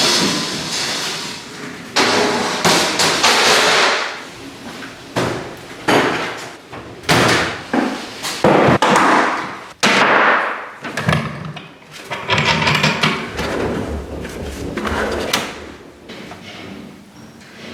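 Workshop work noises: a run of clattering, knocking and scraping, each burst sudden and lasting a second or two, with a few sharp knocks among them.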